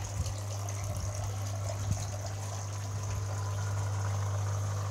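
Inflatable hot tub's pump unit running: a steady low hum with water trickling and washing through it.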